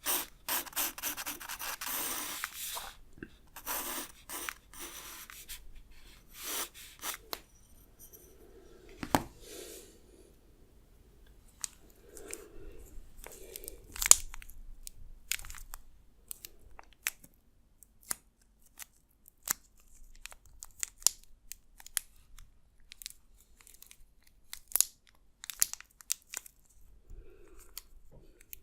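Pencil scratching across drawing paper in bursts of quick strokes. The strokes are dense for the first few seconds, then thin out to scattered short strokes and taps.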